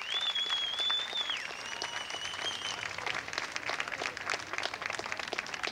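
Audience applause right after a marching band stops playing, with two long, high whistles over the clapping in the first three seconds.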